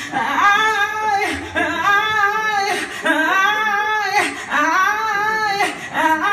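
A woman singing live into a stage microphone, a strong voice in short arching phrases, about five of them, with quick breaths between.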